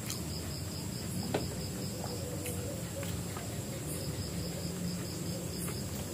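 Crickets chirping steadily, with a high, rapidly pulsing trill over a continuous high drone. A few faint clicks and taps from eating by hand off a plate.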